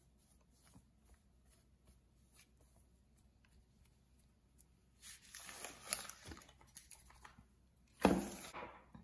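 Soft handling sounds as cornstarch is spread over the pastry base in a metal baking tin. Rustling starts about five seconds in. Just after eight seconds comes a single loud knock as the tin is lifted and tilted.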